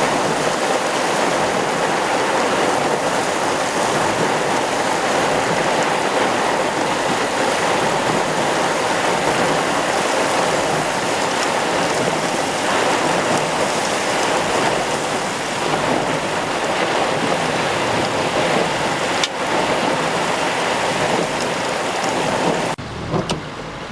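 Steady, loud rush of heavy rain and running floodwater, dropping away sharply near the end.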